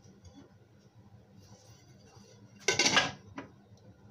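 A metal gearbox lid set down onto a lathe's headstock casting: one short metallic clatter about two-thirds of the way in, followed by a small click.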